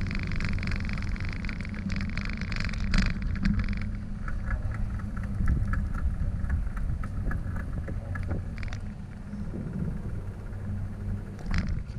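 Bicycle riding recorded from a bike-mounted camera: a steady low rumble of wind and tyres on pavement. Over it the rear freewheel ticks while the bike coasts, fast at first, then slower and more spaced out after about four seconds.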